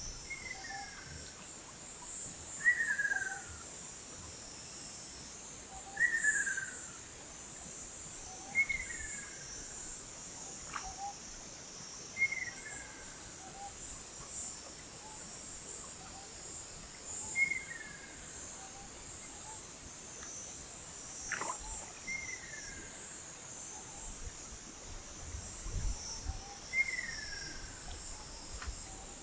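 Ruddy kingfisher calling: a descending rolling whistle of about a second, repeated every few seconds. Underneath runs a steady high chorus of insects.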